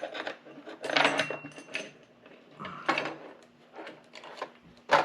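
Chainsaw chain and guide bar being handled and fitted onto the saw: irregular metal clinks and rattles, with a sharper knock near the end.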